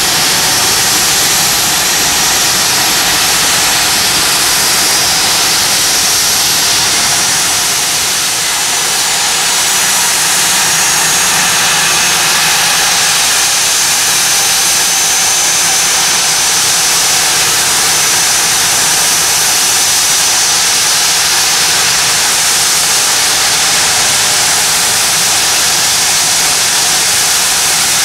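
Gulfstream business jet's turbofan engines idling while it stands on the apron: a steady, loud rushing hiss with a thin high whine on top.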